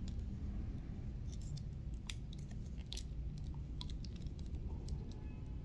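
Scattered light clicks and rustles of a plastic Mazinger Z toy figure being handled, over a low steady hum.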